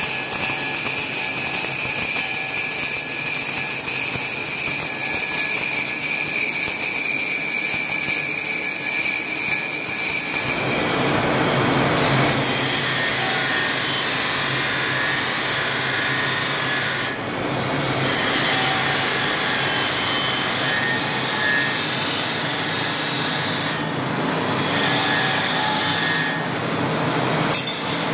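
Belt grinder running with a carbon-steel knife blade pressed against the abrasive belt: a steady, loud grinding hiss with a high whine over it. It grows fuller about ten seconds in and breaks off briefly a few times later on.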